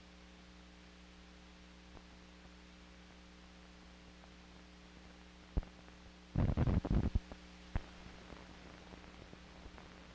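Steady electrical hum from an old 16mm film print's soundtrack playback. About halfway through come a sharp click, then about a second of loud crackling pops and another click, as the end of the print runs through the projector to blank leader.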